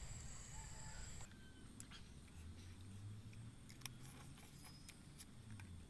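Very quiet eating sounds from cup instant noodles eaten with a fork: a few faint, scattered clicks and mouth sounds. A faint high insect buzz stops abruptly about a second in.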